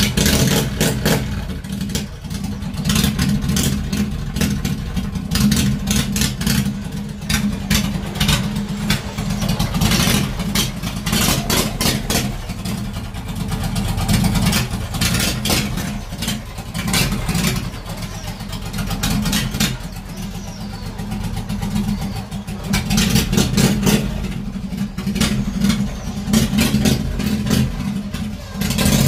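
Hot rod tractor's engine running loud through its freshly reconnected exhaust, revved up and eased off in repeated surges.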